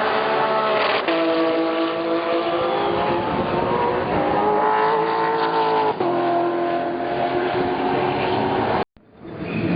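GT race car engine accelerating hard, its pitch climbing steadily and dropping sharply at upshifts about a second in and about six seconds in. The sound cuts out abruptly near the end.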